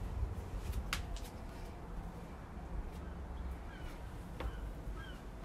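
Low rumble of a handheld phone being carried while someone walks in through a doorway, with a sharp click about a second in and another about four seconds in. Short, repeated bird calls begin in the second half.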